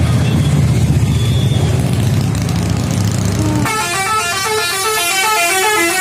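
A bus engine rumbles close by. A little over halfway through, the bus's telolet horn, a set of musical air horns, starts playing a fast tune of several notes stepping up and down together. The tune runs on past the end.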